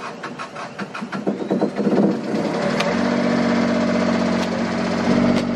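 Boat's generator engine being started: it cranks over with about four even strokes a second for nearly three seconds, then catches and runs steadily.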